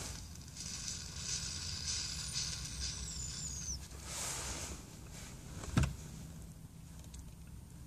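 A long drawn hit from a glass hand pipe: a hiss of air lasting about three seconds, with a thin whistle falling in pitch near its end. This is followed by a short breath out at about four seconds and a single sharp knock near six seconds, over a low steady hum.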